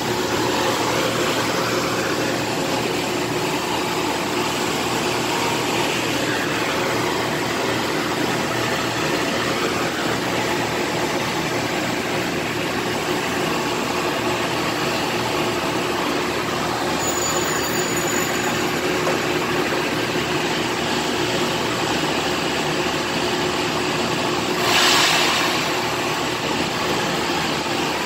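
Metro-North M3 electric railcar standing at the platform, its onboard equipment running with a steady hum and hiss. A short, louder hiss comes near the end, as the doors close.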